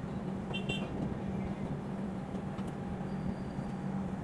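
Steady running noise of a passenger express train with a constant low hum, heard from inside the coach.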